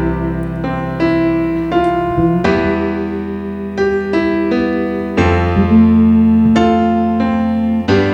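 Keyboard playing slow, held chords over sustained bass notes, moving to a new chord about once a second: an instrumental introduction leading into a congregational song.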